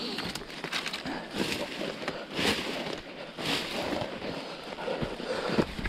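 Brambles and hedge branches rustling and crackling as someone pushes and climbs through a thick hedge, with stronger rustles about once a second.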